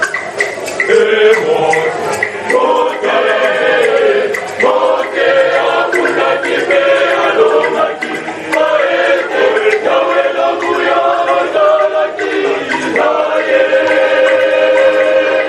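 A choir singing, many voices together, with long held notes and a short break about three-quarters of the way through.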